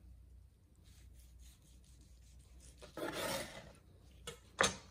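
A long brisket slicing knife sawing through the crusty bark of a smoked brisket on a wooden cutting board, a short rasping stroke about three seconds in. A sharp knock follows near the end.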